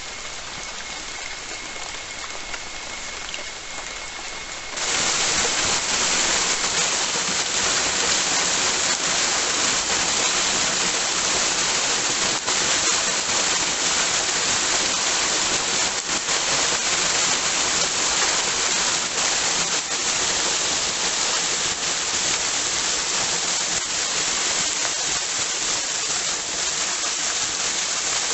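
Steady rain falling in a forest, at first with a faint steady high tone over it; about five seconds in it changes abruptly to a louder, denser rush of rain.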